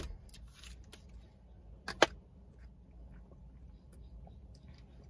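A plastic straw being unwrapped and pushed through the domed plastic lid of an iced-drink cup, with a few light clicks and one sharp click about two seconds in. A low steady hum lies underneath.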